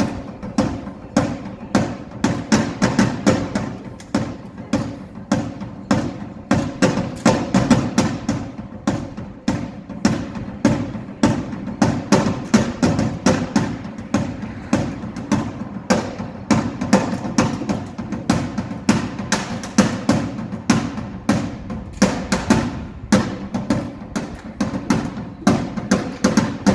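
Drum kit being played on a balcony and heard from the street below: a steady stream of rapid drum and cymbal strikes.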